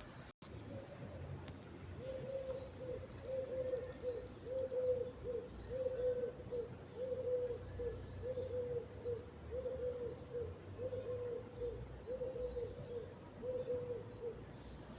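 Birds calling: a long run of short, low cooing notes with brief high chirps over them every second or two.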